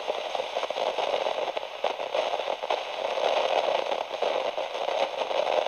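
Steady crackling static, thin and narrow in tone, full of dense small pops.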